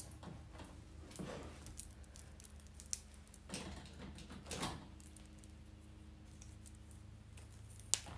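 Faint handling of a mesh wig cap and lace closure while hand-sewing with needle and thread: a few soft rustles and two small sharp clicks, the louder one near the end, over a low steady hum.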